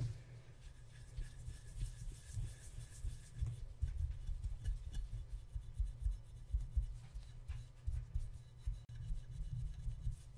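A cloth towel rubbing silver polish around the inside of an F.B. Rogers silver-plated creamer, in quick, uneven scrubbing strokes heard as a run of soft, dull bumps.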